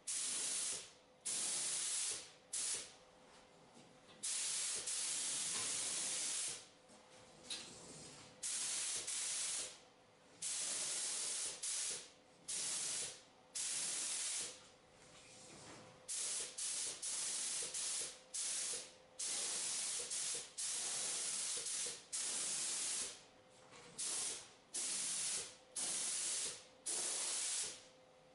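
Automotive paint spray gun hissing in repeated bursts of one to two seconds, starting and stopping sharply as the trigger is pulled and released, laying down a first coat of base coat paint.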